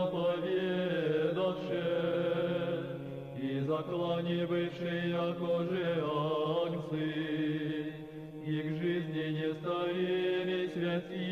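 Male monastery choir singing Orthodox funeral chant a cappella: slow, held chords that shift together over a steady low bass line, with no clear words.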